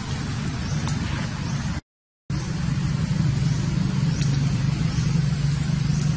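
A steady low rumble, like a running engine, with a complete cut-out of all sound for about half a second about two seconds in, and a few faint short high chirps over it.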